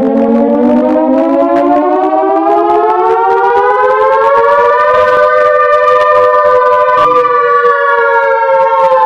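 Synthesized WWII-era Carter air raid siren sounding its noon blast: a loud chord of several tones winds up in pitch for about five seconds, then holds and slowly sags a little.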